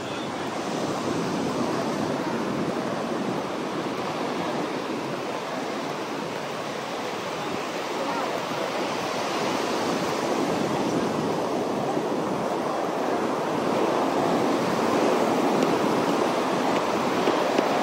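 Ocean surf breaking and washing up the beach: a steady rush of waves that swells louder in the second half.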